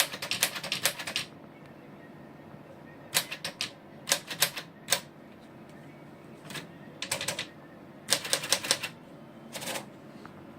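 Smith Corona portable typewriter being typed on: type bars clacking against the platen in a quick run for the first second, then short bursts of keystrokes separated by pauses of a second or so.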